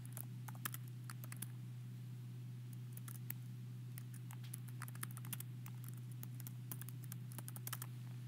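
Computer keyboard keys clicking in quick, irregular runs as a short phrase is typed, faint over a steady low hum.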